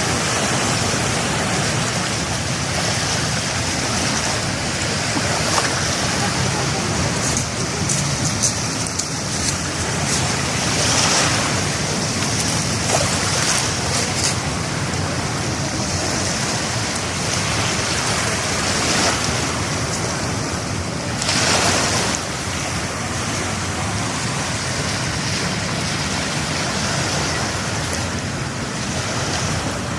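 Waves of Manila Bay washing onto the shore: a steady rushing wash that swells louder now and then, most strongly a little past twenty seconds in.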